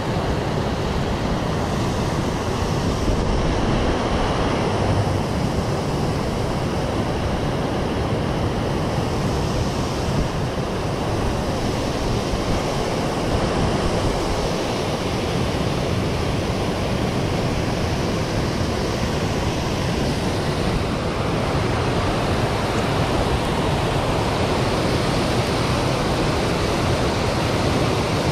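Water rushing over a canal spillway, a steady, even roar that holds unchanged throughout.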